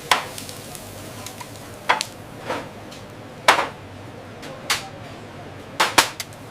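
Kitchen clatter: a half-dozen sharp clinks and knocks of metal utensils and pans, spaced irregularly over a steady hum and hiss.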